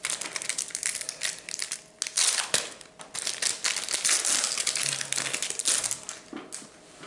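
Foil wrapper of a Pokémon TCG Crown Zenith booster pack crinkling in a dense run of quick rustles as it is torn open and handled; the crinkling thins out near the end.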